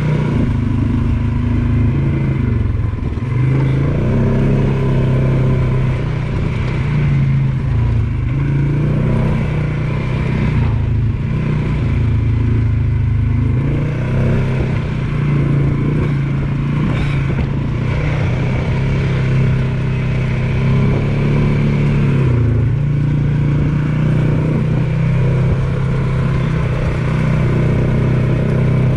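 ATV engine running under way on a trail, its pitch dipping briefly and coming back up several times as the throttle eases and opens again.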